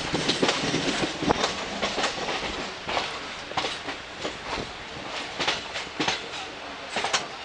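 Passenger coach wheels clacking irregularly over rail joints and pointwork under a steady rolling rumble, heard from the open doorway of a train running slowly into a station.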